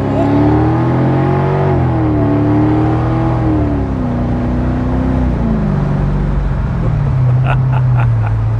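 Mercedes-Benz SL500's V8 accelerating, heard from the open-top cabin with wind noise: the engine note climbs, drops at an automatic-transmission upshift about two seconds in, climbs again, drops at a second upshift about four seconds in, then settles lower as the car eases off. The owner judges these shifts of the freshly repaired 722.9 seven-speed automatic better, though still not right.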